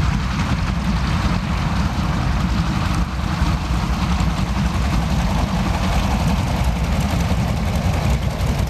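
Junkers Ju 52 trimotor's three radial engines running at low power as it taxis on grass: a steady, loud low rumble.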